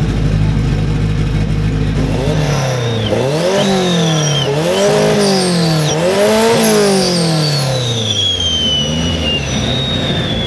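Turbocharged VW AP 2.0 four-cylinder in a Chevette idling, then revved three times in quick succession before the revs fall back, with a small blip near the end. A high turbo whistle falls away as the revs drop.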